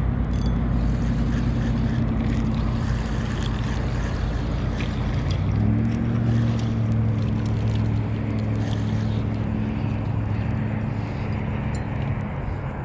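Motor vehicle engine hum from road traffic: a steady low drone that steps up in pitch about halfway through, over a continuous rushing noise.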